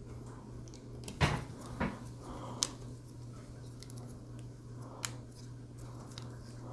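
Handling of a flexible ball-jointed tripod and its plastic phone clamp: a few scattered plastic clicks and knocks, the loudest about a second in, over a steady low hum.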